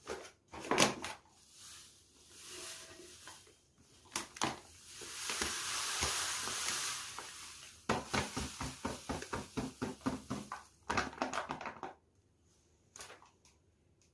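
Household cleaning and handling noises in a small room: scattered knocks and clatter, a hiss lasting a few seconds, then a quick run of rubbing or scrubbing strokes, about five a second.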